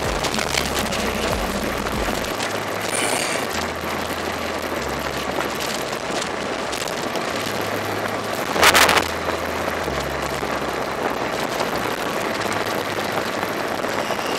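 Steady wind rush on the action camera's microphone while an electric bike rides a dirt road, with a low stepping bass line of background music underneath. A short, louder rush of noise comes about nine seconds in.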